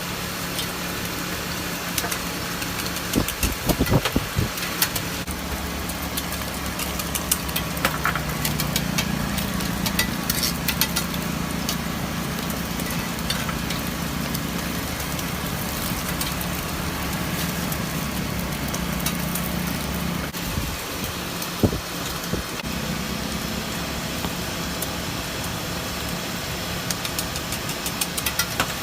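A motor running steadily, with a low hum that shifts slightly in pitch for a while in the middle, under a steady background noise and scattered sharp clicks and taps.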